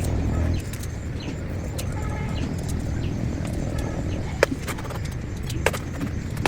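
Steady low rumble with faint bird calls now and then, and two sharp clicks, one past the middle and one about a second later.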